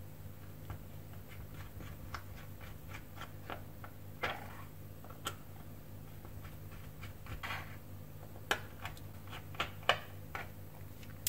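Light, scattered clicks and taps of small tools on the plastic and metal parts of a GoPro Hero5 Session being taken apart, with a couple of short scraping swishes, over a low steady hum.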